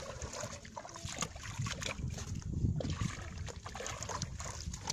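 A hoe chopping into wet mud and dragging it, with water sloshing and splashing around the digger's legs: a string of irregular wet thuds and knocks.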